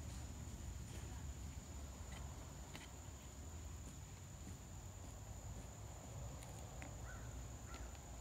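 Faint stirring of fiberglass resin and hardener with a wooden stick in a plastic mixing cup, heard as a few soft taps and scrapes, over a steady high-pitched hum; two short chirps near the end.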